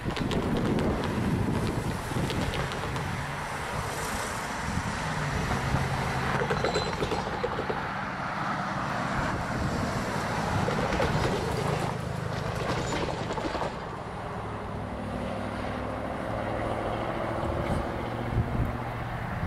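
Diesel freight locomotives out of sight working hard under heavy throttle: a steady engine drone with a low hum, its note shifting a couple of times.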